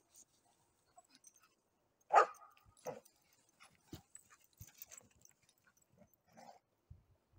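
A dog gives one short, loud bark about two seconds in, followed by a softer yelp under a second later. Between them, faint scuffling of paws in snow.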